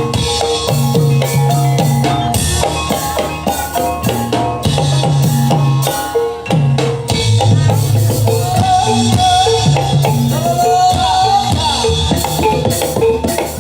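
Reog ensemble music played live: driving drums and struck percussion over sustained gong-like tones, with a wavering melody line coming in over the top in the second half.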